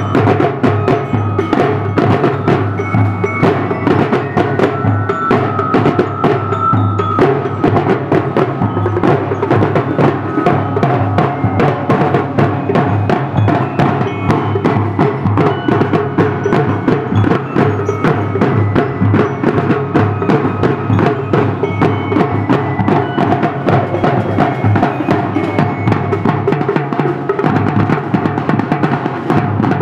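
Marching drum line playing a fast, steady rhythm together: snare and multi-tom tenor drums over bass drums.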